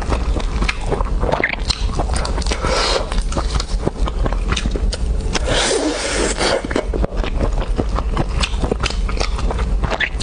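Close-miked eating: continuous wet chewing with crunchy, crackling bites, over a steady low hum.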